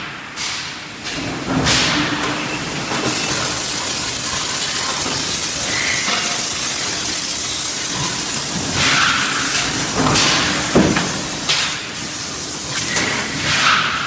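Forging-shop machinery: a steady loud hiss like escaping steam or air, broken by a few short knocks.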